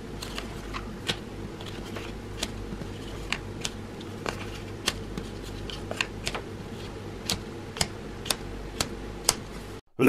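Folded origami paper being pressed and flattened by hand, its creases giving short sharp crinkly clicks, roughly two a second and irregular, over a steady low hum. The sound cuts off just before the end.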